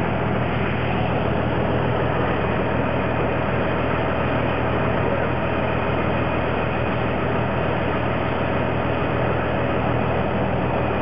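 Engine of heavy tree-service machinery running steadily at an even pace, with a constant low hum under it.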